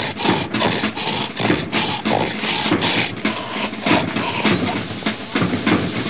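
Rhythmic saw-like grunting and marching at about three strokes a second. About four seconds in, a drill spins up with a high whine that rises and then holds, over a steady hiss.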